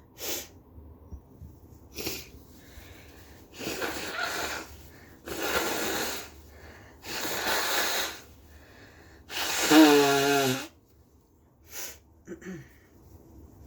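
A person blowing their nose wetly into a tissue: several long, noisy blows, the last and loudest ending in a falling honk, with short sniffs before and after.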